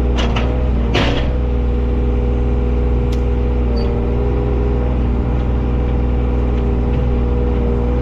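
John Deere 35G mini excavator's diesel engine running steadily under work, its pitch wavering slightly. Two short noisy bursts come near the start and about a second in.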